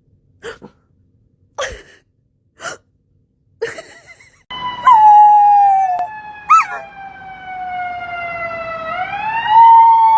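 Four short, sharp knocks about a second apart, then a loud siren wail that slowly falls in pitch and starts rising again near the end.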